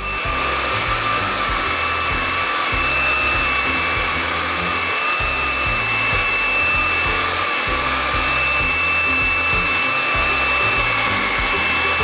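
Xiaomi Wireless Vacuum Cleaner 2 cordless stick vacuum running steadily at its highest suction setting, with a rush of air and a steady high motor whine, as its floor brush is pushed over a hard floor.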